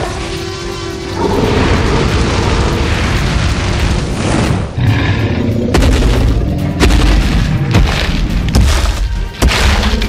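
Cartoon sound effects over background music: a noisy rush for a few seconds, then a series of heavy low booms about a second apart.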